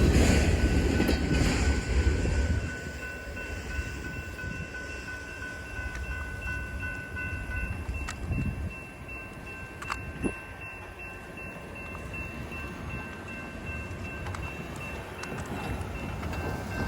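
Rumble of a Canadian Pacific auto rack freight train passing a grade crossing, fading away over the first two or three seconds. It leaves the crossing's warning bell ringing steadily on its own.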